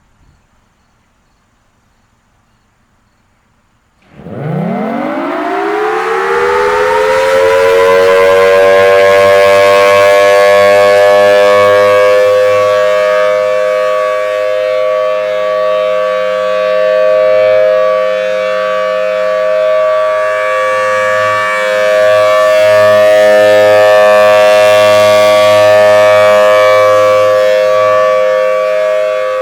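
Federal Signal Thunderbolt 1000T Series B outdoor warning siren sounding its alert test signal. After about four seconds of quiet it winds up in a rising wail, then holds a steady chord that swells and fades every several seconds as the rotating head sweeps around. A low hum runs underneath.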